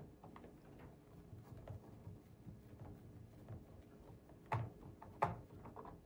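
A screwdriver turning screws out of a laptop's metal-look bottom cover: faint scratching and ticking, with two light clicks about four and a half and five seconds in.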